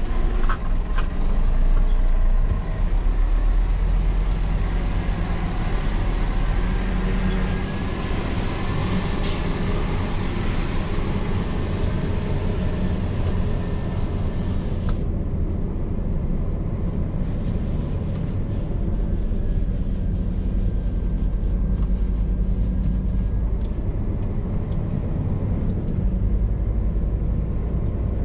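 Scania R450 lorry's diesel engine running with a steady low drone. A broad hiss over it cuts off abruptly about halfway through.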